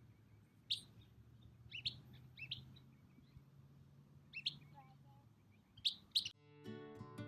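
Short bird chirps, about six of them scattered over several seconds, over a faint low steady hum. Acoustic guitar music starts near the end.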